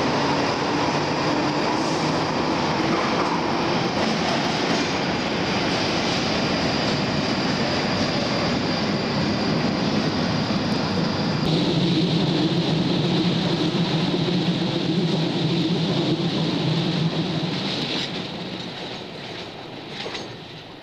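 A 1938 Tube Stock train on the London Underground pulling out of a deep-level station and running off into the tunnel: a loud, steady rumble and roar of wheels on rail, echoing in the tunnel, with a thin, steady high whine over it. The sound fades away near the end.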